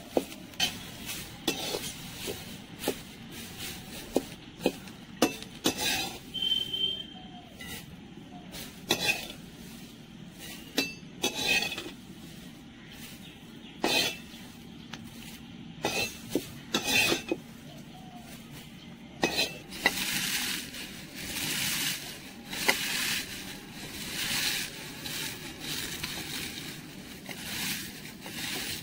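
A perforated aluminium skimmer scrapes and clinks against an aluminium kadai as dry-roasting neem leaves are stirred and scooped out, in sharp separate knocks. About two-thirds of the way through, this gives way to a steady dry crackling rustle as the crisp roasted neem leaves are crumbled by hand in a steel bowl.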